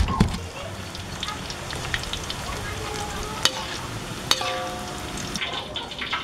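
Tempe strips frying in hot oil in a wok: a steady sizzle with many small crackles and a few sharper pops. At the very start come a few low knocks of a stone pestle grinding in a stone mortar.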